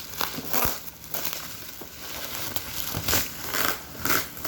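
Packaging being handled during an unboxing: irregular crinkling and rustling, with a few sharper crackles.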